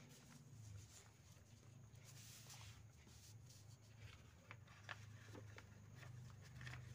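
Faint rustling and light taps of a sheet of lined notebook paper being laid down and folded in half lengthwise, over a low steady hum.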